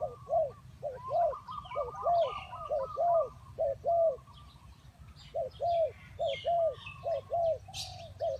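Spotted doves cooing: a run of low, arched, evenly repeated coo notes, about two or three a second, breaking off briefly about midway and then resuming. Higher chirps of smaller birds sound over them.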